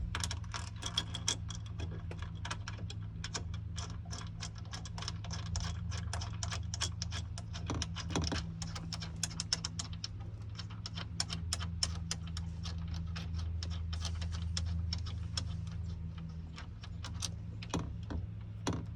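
Hand ratchet clicking in quick, irregular runs while the bolts holding the shifter to its base plate are run in, over a steady low hum.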